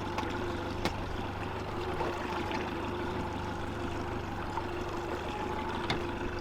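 Fishing boat's motor running steadily at low speed, a constant drone with a low hum under it, with water noise around the hull. Two sharp knocks come through, one about a second in and one near the end.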